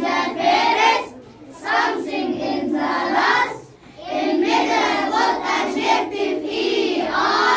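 A class of young children singing together in unison, in phrases broken by two short pauses.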